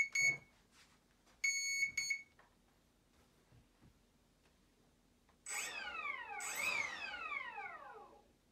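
An RC electric speed controller beeps on power-up: a few short high beeps, then one longer steady beep. A few seconds later the electric ducted fan gives two brief whines, each dropping steeply in pitch as the fan spins down.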